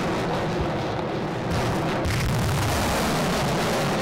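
Bureviy 220 mm multiple-launch rocket system firing a salvo: a continuous heavy roar of rocket launches, a little louder from about a second and a half in.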